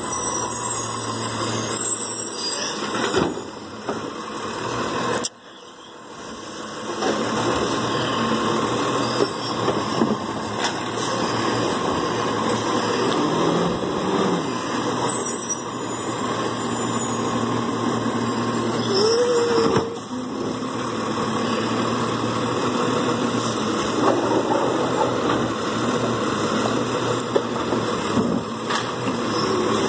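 Automated side-loader recycling truck running close by, its engine working as the hydraulic arm lifts and empties wheeled carts. There is a short squeal about two-thirds of the way through, and the engine pitch rises near the end.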